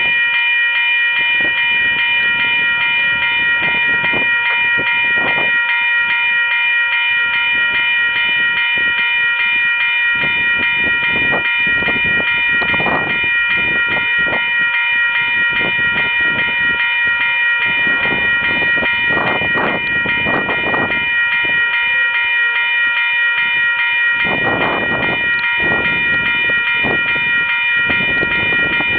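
Freight train cars rolling past, with irregular clanks and rattles over a steady high-pitched tone.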